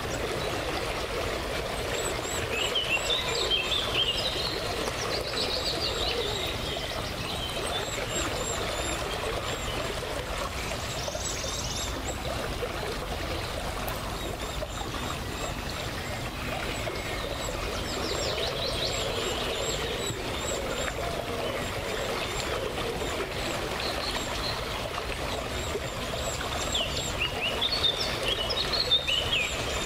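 Small river water trickling steadily, with songbirds singing short phrases about three times.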